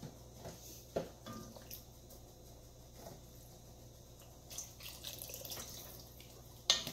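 Wooden spoon stirring a braising liquid in an enameled cast-iron Dutch oven: soft wet sloshing and dripping with a few light knocks of the spoon on the pot, and a sharper knock near the end.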